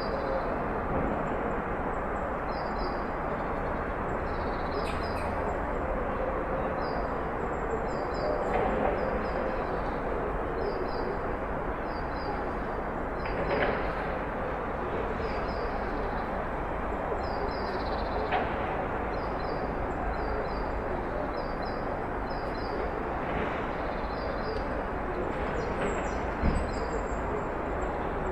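Steady outdoor ambience of distant traffic noise, with small birds chirping over it in short, high, often doubled notes repeated every second or so.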